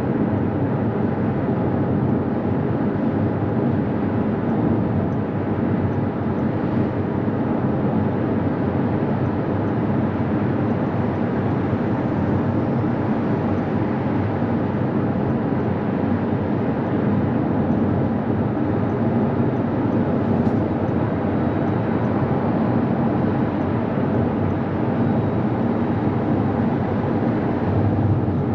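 Abarth 500e electric hatchback cruising steadily at motorway speed: a constant drone of tyre and wind noise with no change in pace.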